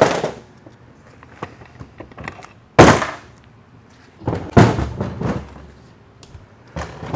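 Heavy metal clunks as a transmission's overdrive housing is worked off the case on a steel workbench. One sharp, loud clunk with a short ring comes about three seconds in, and a cluster of knocks follows about a second and a half later, with small clicks between.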